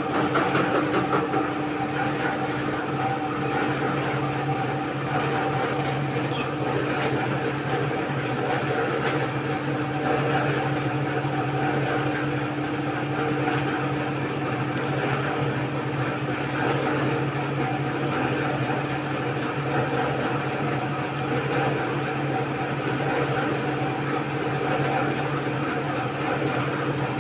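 Semi-automatic noodle machine running, its electric motor driving the rollers that press the dough into a sheet: a steady mechanical hum with a few constant pitches.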